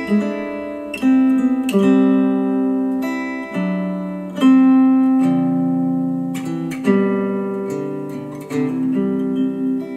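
Acoustic guitar music played back through Monitor Audio Bronze 100 bookshelf speakers driven by a Cambridge Audio CXA61 integrated amplifier. Chords are struck every second or two, and each rings out and fades before the next.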